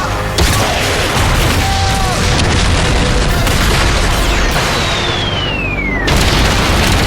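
Battle sound effects of blasts and explosions over dramatic music, with a falling whistle-like tone about four and a half seconds in that breaks off at a loud hit about six seconds in.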